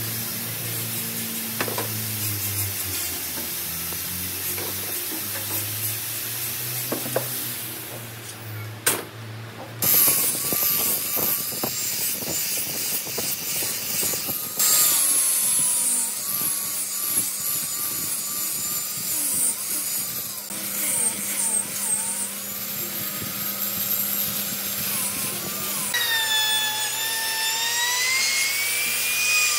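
Handheld power sander running on pine, its pitch wavering as it is pressed against the wood; near the end a Makita trim router takes over, cutting along the pine frame's edge with a whine that rises.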